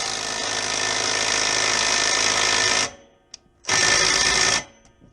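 Impact wrench hammering on a rusted exhaust collar bolt: one long burst of about three seconds, then after a short pause a burst of about a second. The bolt does not break loose; the owner blames the rust and a wrench that is not strong enough.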